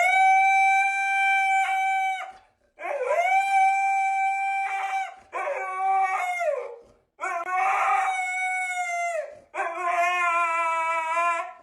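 A dog howling: five long, held howls in a row, each rising at the start and sliding down at the end.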